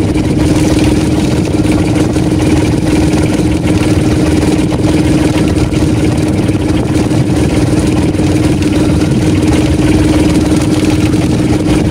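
Outrigger fishing boat's engine running steadily at an even pitch.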